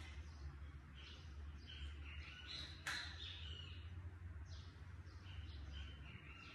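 Birds chirping faintly in the background, a short call repeated every second or two, over a low steady hum. A single sharp click about three seconds in.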